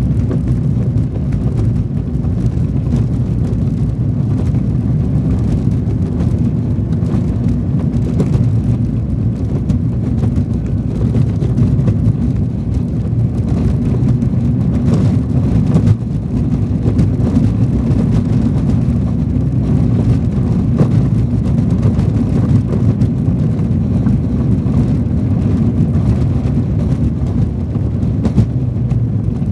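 Car driving on a dirt and gravel road, heard from inside the cabin: a steady low rumble of engine and tyres, with a few faint knocks from the rough surface.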